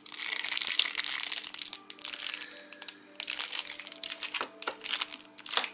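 Clear plastic packaging bags crinkling in the hands, in short spells of rustling, as a bagged mini camera and its accessories are handled. Faint background music plays underneath.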